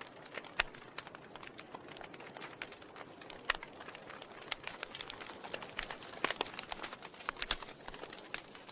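Wood fire in a fireplace crackling: irregular sharp snaps and pops over a soft hiss, with a few louder pops now and then.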